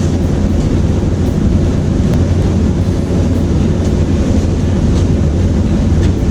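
Steady low background rumble with no change in level, with a few faint light clicks.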